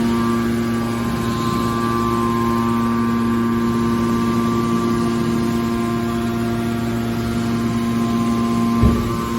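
Hydraulic scrap car baler running, its power unit giving a steady, even hum. A single short knock comes near the end.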